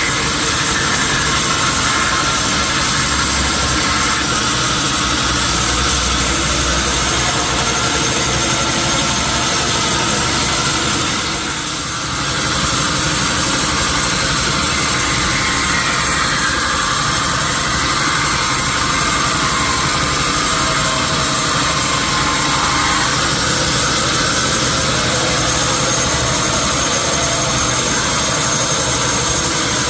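Sawmill machinery running steadily, a motor-driven saw at work on wood. The sound briefly drops about twelve seconds in.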